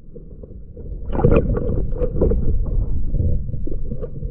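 Lake water sloshing and rumbling, heard muffled through a submerged action camera, louder from about a second in.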